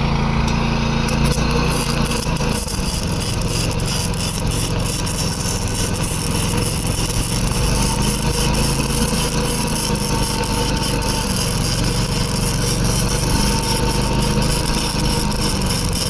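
Welding arc crackling and hissing steadily from an inverter welder, over the steady hum of a Predator 11,500-watt inverter generator running as it powers the welder.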